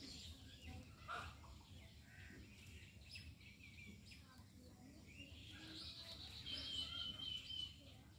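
Small birds chirping faintly, with short scattered calls and one thin steady whistled note held for about a second near the end, over a low background rumble.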